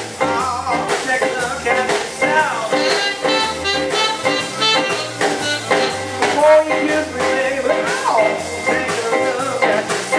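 Live blues band playing: a saxophone plays bending, wavering lines over hollow-body electric guitar, electric bass and drums keeping a steady beat.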